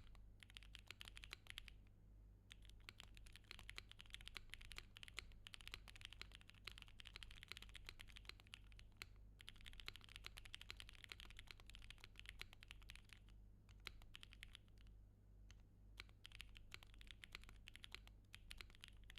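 Typing test on a 60% mechanical keyboard with a gummy O-ring-mounted PCB: fast runs of key clicks, broken by short pauses about two seconds in, about halfway, and around two thirds of the way through. A faint steady low hum lies underneath.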